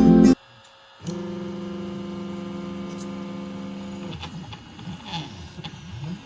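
Easythreed X1 3D printer starting a print: a steady hum for about three seconds, then its stepper motors whirring in repeated rising and falling glides as the axes begin to move.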